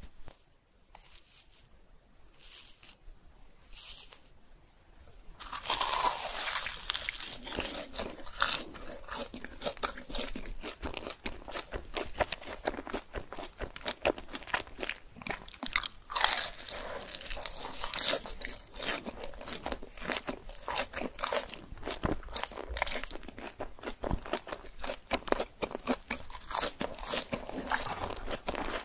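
A few faint short sounds, then from about five seconds in, close-miked crunching and chewing of a deep-fried cheese ball with a crisp, seasoning-dusted crust.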